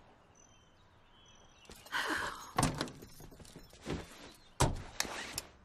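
Pickup truck door being opened with a clunk of the handle and latch, then shut with a thud about two seconds later, with a few lighter knocks in between.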